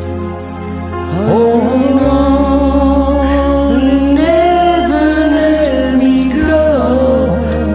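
A singer's voice over a karaoke backing track of sustained chords and low bass notes. Before the voice comes in about a second in, only the backing plays; after that the singer holds long notes and slides between pitches.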